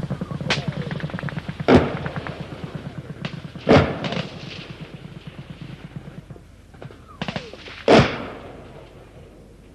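Battlefield gunfire: a rapid burst of machine-gun fire for the first couple of seconds, then three loud single shots, each echoing away, at about two, four and eight seconds in.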